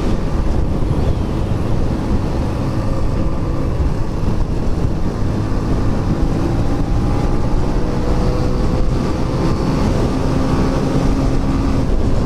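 Motorcycle riding along at speed: wind rumbling heavily on the microphone, with the engine's steady hum underneath, its pitch drifting slowly up and down.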